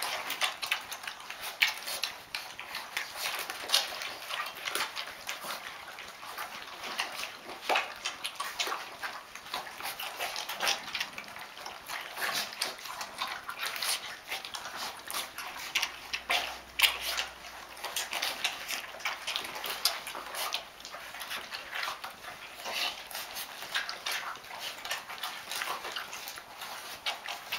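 A litter of five-week-old Rhodesian Ridgeback puppies eating together from one food bowl: a busy, irregular patter of small smacking and clicking sounds, with louder ones now and then.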